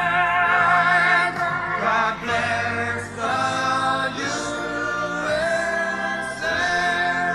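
Music: a choir singing long held notes that change every couple of seconds.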